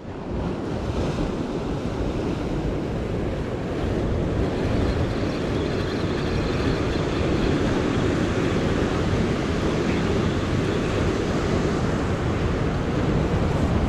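Wind buffeting the microphone over the steady wash of surf breaking against jetty rocks.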